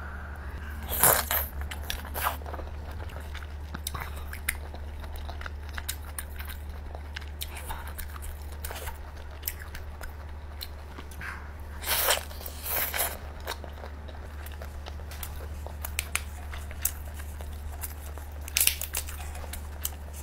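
Close-miked eating sounds: biting and chewing grilled lobster meat, with sharp clicks and crackles of lobster shell being pulled apart, loudest about a second in, around the middle and near the end. A steady low hum runs underneath.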